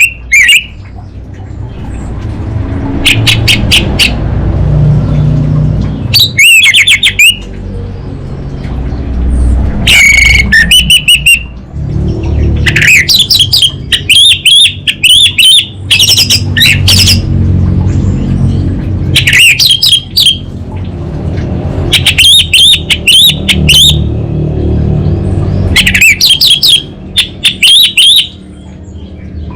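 Orange-headed thrush singing: short bursts of rapid, high, warbling and trilled notes, repeated about every two or three seconds with brief pauses, over a steady low background rumble.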